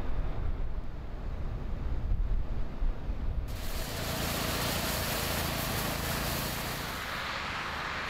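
Low wind rumble on the microphone. About three and a half seconds in it cuts to a walk-behind snowblower running, a steady engine drone under the hiss of snow being thrown.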